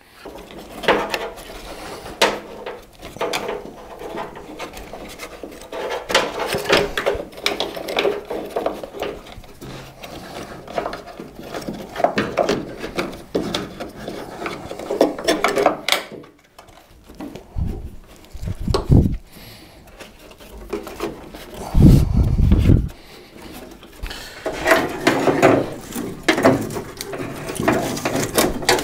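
Wiring harness being pulled and fed through the openings in a steel truck tailgate: irregular rubbing, scraping and rustling of wires and plastic connectors against metal, with a couple of low thumps about two-thirds of the way through.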